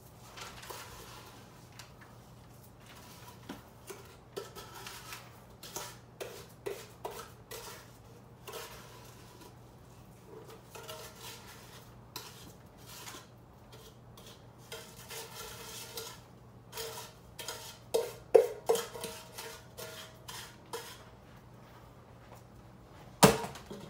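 A spoon scraping and clinking against the inside of a stainless steel mixing bowl as thick sugar paste is scooped out: irregular scrapes and taps, some leaving a short ring from the bowl. The knocks come harder and closer together about three quarters of the way through, and one sharp knock comes near the end.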